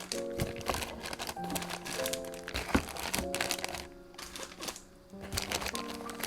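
Packaging crinkling irregularly as it is handled, over background music with a gentle melody.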